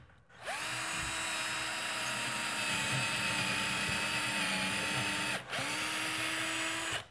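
Cordless drill with a 3/16-inch bit drilling a pilot hole up into a wooden ceiling stud, spinning up and running at a steady speed. It stops briefly about five seconds in, then starts again.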